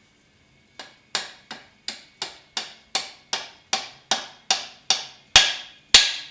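Hammer blows driving a steel roll pin into a T-56 Magnum transmission, about fourteen sharp metallic strikes at roughly three a second, each ringing briefly. The strikes grow harder toward the end, and the last two are the loudest as the pin seats.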